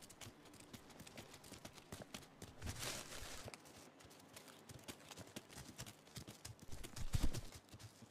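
Faint scuffling and patter of arctic wolf pups moving about and feeding, many small knocks and taps, with a brief rustle about three seconds in and a few louder knocks near the end.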